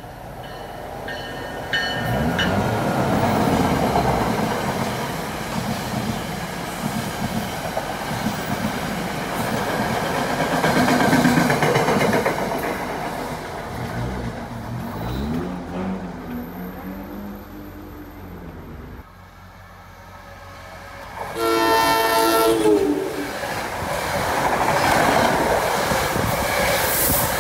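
NJ Transit electric commuter trains passing through a station at speed, with a steady rumble and clatter of wheels on rail. Near the end a train horn sounds a chord for about a second and a half.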